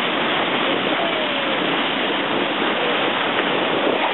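Steady rush of a boat's bow wave breaking and foaming along the hull while the boat cruises.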